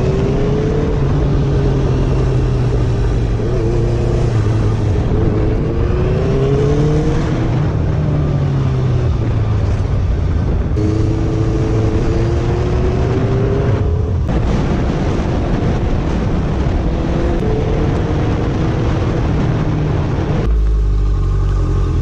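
Honda motorcycle engine pulling under way under heavy wind rush, its pitch climbing several times as it accelerates. The sound changes abruptly near the end to a lower, slower engine note.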